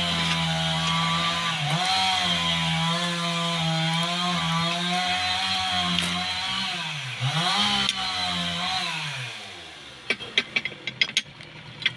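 Electric pipe-flaring tool's motor running under load as it flares a copper pipe end: its pitch wavers, drops sharply about seven seconds in and recovers, then winds down. A few sharp metallic clicks follow near the end.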